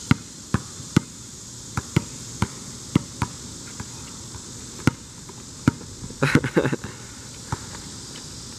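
A basketball bouncing on an outdoor asphalt court, about a dozen single sharp bounces at an uneven pace, with a quick clatter of knocks a little after six seconds in.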